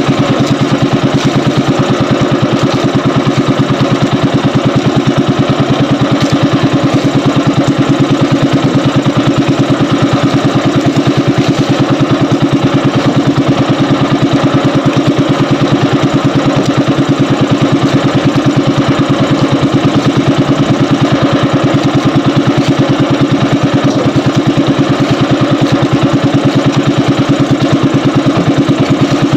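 Small engine of a motorized outrigger fishing boat running steadily under way, a loud, rapid, even beat that holds unchanged throughout.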